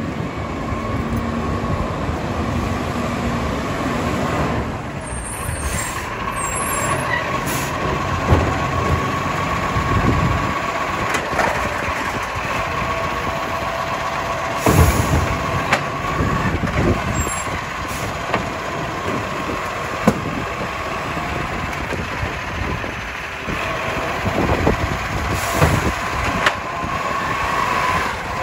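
International Acco side-loader garbage truck running close by as it pulls up and works its automated lifting arm, with a steady whine through most of it. Several loud clunks and bursts of noise stand out over the engine.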